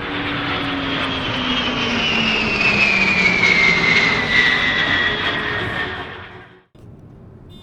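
Aircraft engine passing overhead, its whine falling steadily in pitch as the plane goes by. The sound fades and cuts off sharply near the end.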